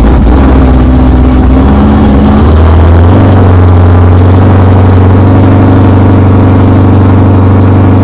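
Corvette's V8 engine pulling away under load while towing a small camper trailer. Its low note steps up in pitch about two and a half seconds in, then holds steady.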